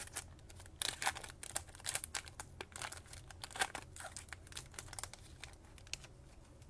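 A trading-card pack's wrapper being torn open and crinkled in the hands: a run of irregular crackles that thins out after about five seconds.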